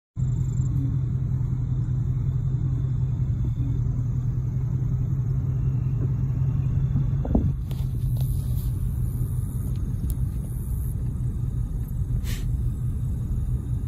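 Steady low rumble of a car driving slowly, heard from inside the cabin with a window open. A brief thump about seven seconds in.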